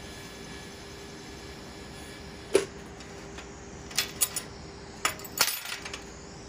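Steel chain links and ring of a horseshoe ring puzzle clinking against the horseshoe and a steel welding table. There is one sharp metallic clink about two and a half seconds in, then a quick cluster of clinks between about four and six seconds.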